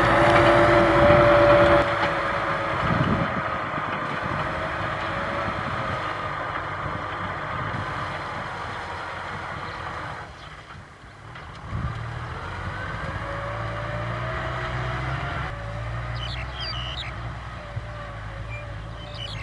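Tractor diesel engine running steadily. It drops away for a moment about ten seconds in, then comes back, its pitch rising a little and settling.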